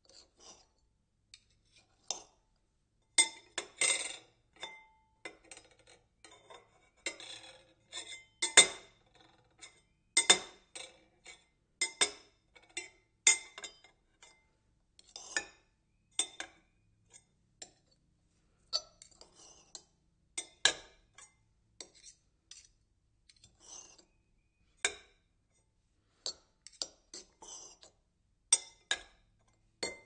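A knife cutting and rattling: irregular metallic clinks and clatters with a brief high ring, some in quick clusters, others spaced by short pauses.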